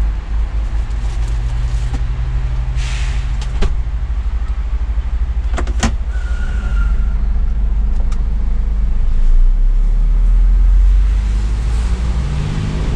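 Scania S500 truck's diesel engine running, heard from inside the cab, with a few sharp clicks and a short hiss about three seconds in. The engine grows louder and deeper from about nine seconds in.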